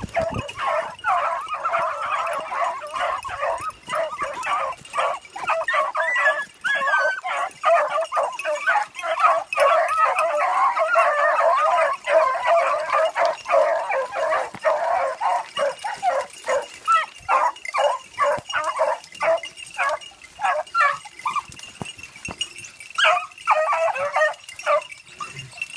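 A pack of beagles baying in full cry on a rabbit's trail, many voices overlapping. About two-thirds of the way through the chorus thins to scattered separate yelps, then a short burst of baying comes near the end.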